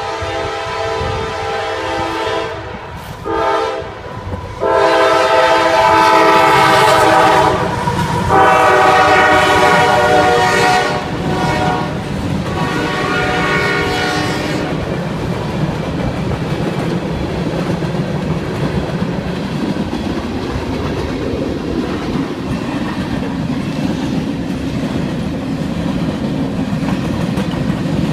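CSX freight locomotive's Nathan K5LA five-chime air horn sounding a series of blasts, a steady multi-note chord broken by short gaps, the loudest blasts in the middle. The horn stops about 15 seconds in, leaving the steady rolling rumble and clickety-clack of freight cars passing.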